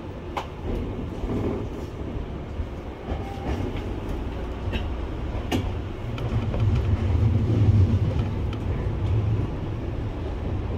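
Keio 1000 series electric train running along the line, heard from inside at the front: a steady low rumble of the running gear with a few sharp clicks from the wheels. The rumble grows louder about six seconds in and eases slightly near the end.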